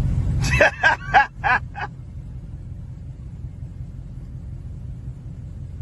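Dodge Charger R/T's Hemi V8 running through long-tube headers and a catless, muffler-deleted exhaust: a deep rumble heard inside the car, loud at first, then falling to a quieter steady rumble after about half a second. Five short vocal bursts come over it in the first two seconds.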